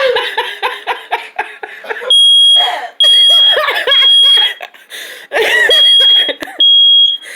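Smoke alarm beeping with a loud, high, steady tone in repeated beeps, starting about two seconds in. People laughing before and between the beeps.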